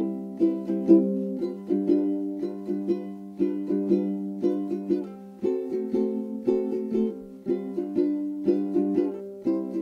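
Background music: a plucked string instrument playing a light tune, with notes plucked about twice a second.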